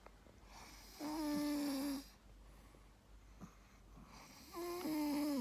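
A sleeping dog snoring: two snores about three and a half seconds apart, each a steady, pitched buzz with a breathy hiss over it.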